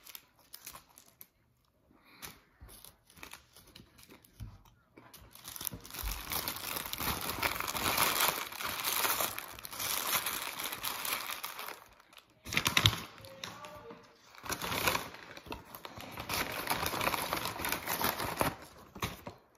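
Foil burger wrapper and paper bag being crumpled and rustled by hand, in long crinkling stretches with one sharper crackle partway through. It starts with a few light rustles.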